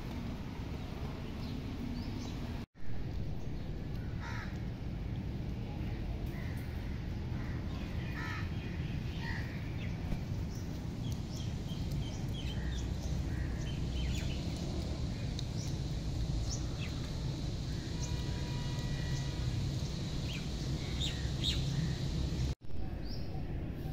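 Birds chirping and calling on and off over a steady low background rumble. The sound drops out for an instant twice, about three seconds in and near the end.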